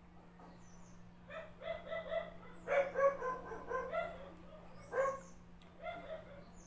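A dog yipping in quick runs of short, high calls, about a second and a half in, again around three seconds, and once or twice near the end, over a faint steady low hum.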